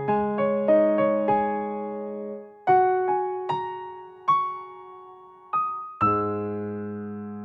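Background piano music: a quick run of notes, then single notes struck about half a second to a second apart, and near the end a chord that rings out.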